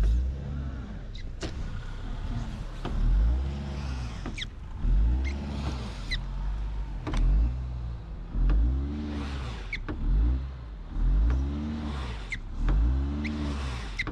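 A car engine revving up and falling back again and again, about once every second and a half, with faint high squeals: a car stuck in deep snow, its wheels spinning as the driver tries to rock it free.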